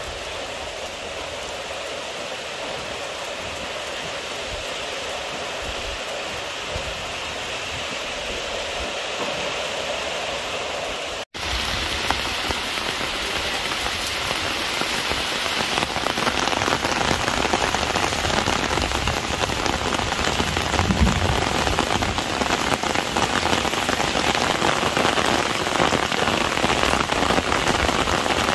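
Steady rain falling on a muddy yard and garden plants, with water pouring off a roof edge. The sound cuts out for an instant about eleven seconds in, then comes back louder.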